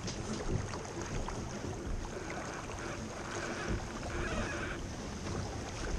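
Steady wind buffeting the microphone and water rushing along the hull of a small sailing keelboat under way.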